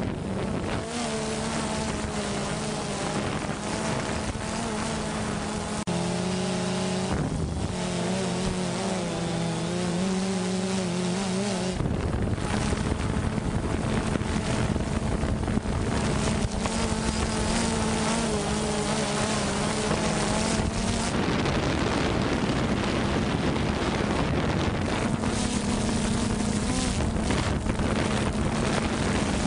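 Motor hum running steadily at several pitches that waver slightly, with wind noise on the microphone that grows heavier from about twelve seconds in.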